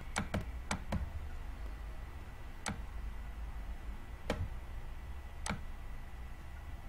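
Sharp clicks at a computer: a quick run of four in the first second, then single clicks every one to two seconds, over a low steady hum.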